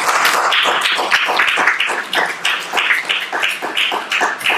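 Audience applauding, with many hands clapping at first and thinning to fewer, more evenly spaced claps near the end.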